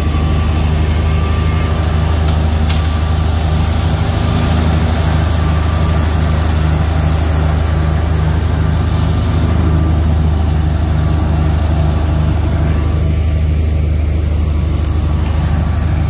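Wheat thresher running steadily while being fed: a loud continuous machine drone with a strong low hum and a regular pulsing beat.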